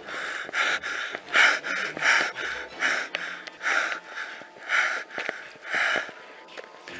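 A person breathing heavily and fast, a run of short, loud breaths in and out at roughly two a second.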